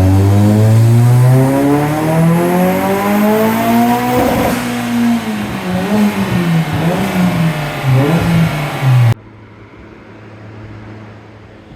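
Nissan SR20 inline-four engine revving up steadily on a dyno, then its revs fall away about four seconds in and waver up and down unevenly, on a car being diagnosed for a rough idle and a fuel-system fault. About nine seconds in the engine sound cuts off abruptly, leaving a steady low hum.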